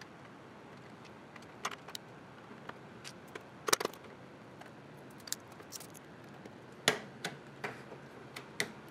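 Scattered small plastic clicks and knocks as the touchscreen unit is handled and fitted onto the 3D printer's frame, about a dozen in all, with the sharpest snaps a little over a third of the way in and again past the middle.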